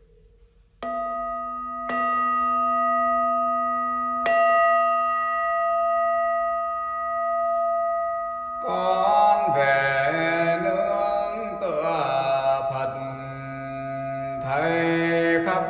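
A Buddhist bowl bell struck three times within a few seconds, each strike ringing on in a long, steady hum that overlaps the next; about nine seconds in, soft instrumental music comes in under the ringing.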